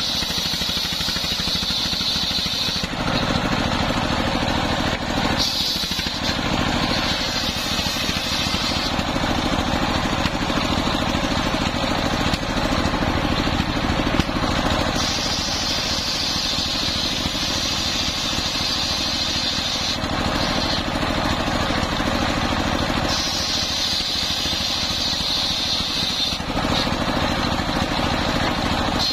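Stationary single-cylinder diesel engine running steadily, belt-driving the circular saw blade of a homemade saw table. Four times a higher whine rises over the engine as the blade cuts through coconut palm trunk wood.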